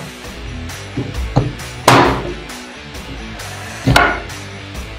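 Cleaver chopping through chicken onto a plastic cutting board: a light knock, then two hard chops about two seconds apart, over background music.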